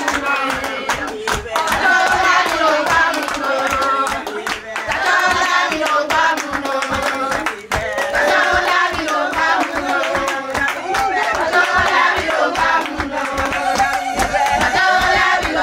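Several voices singing together over steady, rhythmic hand clapping.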